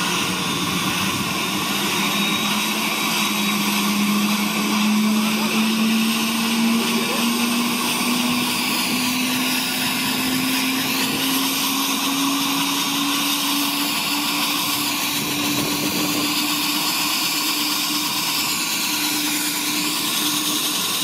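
Gendarmerie helicopter starting up: the turbine's whine climbs slowly in pitch as the main rotor spins up, over a steady hiss of engine noise.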